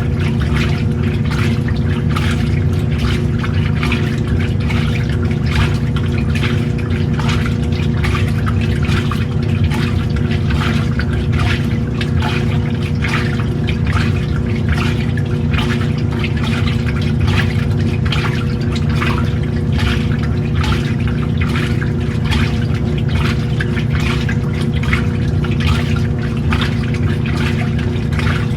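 Old-style washing machine running a wash: a steady motor hum under water sloshing irregularly in the tub.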